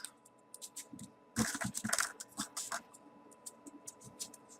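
Small folded paper 3D origami modules being handled and slotted into the model: a string of short paper clicks and scratches, busiest in the middle.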